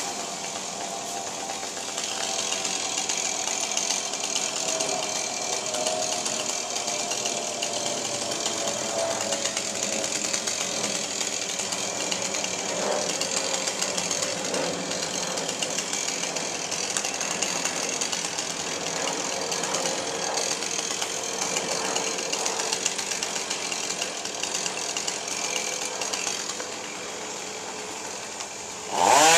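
Two-stroke chainsaw idling steadily, then revved up sharply right at the end.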